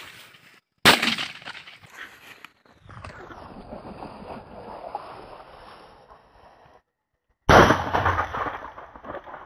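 Two shotgun shots, one about a second in and a louder one near the end, each ringing off over a second or two.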